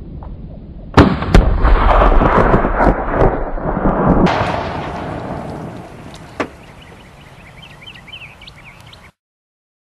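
Gunshots and the boom of an exploding target about a second in, followed by a long rolling rumble. Another sharp blast comes about four seconds in, then the sound dies away, with a lone crack a couple of seconds later.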